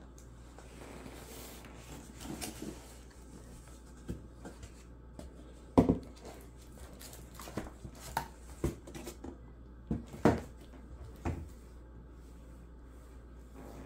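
A cardboard shipping box being opened and handled: flaps and panels scraping and rustling, and the boxed laptop inside knocking against the cardboard, with two louder knocks about six and ten seconds in.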